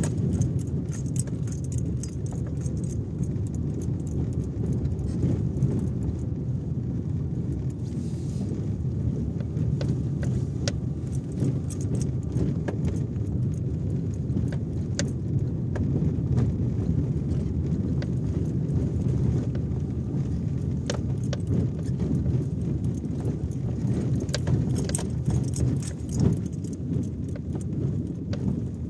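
A car driving slowly over a rough, cracked concrete road, heard from inside the cabin: a steady low rumble of tyres and engine, with frequent sharp little clicks and rattles from the bumpy surface.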